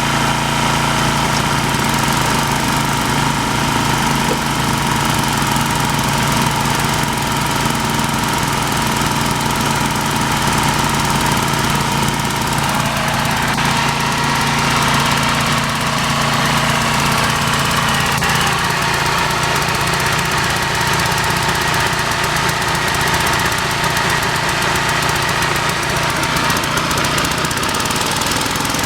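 Small gasoline engines of two vintage portable air compressors running together, a steady engine beat; the engine pitch shifts slightly about halfway through.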